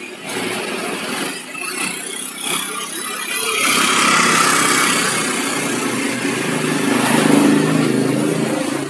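Motor scooter riding past close by, its small engine running. The sound builds from about a third of the way in and is loudest near the end, then fades.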